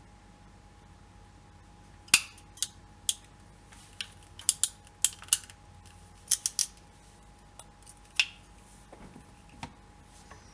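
SN-28B-W(48B) ratchet crimp tool clicking as its handles are closed through the ratchet, crimping a small non-insulated terminal. About a dozen sharp metallic clicks come in irregular groups, the loudest about two seconds in.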